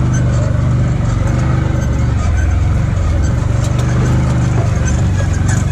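Side-by-side UTV engine running steadily as the machine drives along a rough bush trail, its note rising and falling slightly with the throttle, with scattered light clicks over it.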